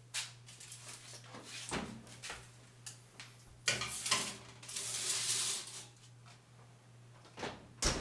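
Oven door opened with a clunk, then a foil-lined baking tray slid onto the metal oven rack with a scraping rustle lasting a couple of seconds, and the door shut with a knock near the end, among a few smaller clicks and knocks.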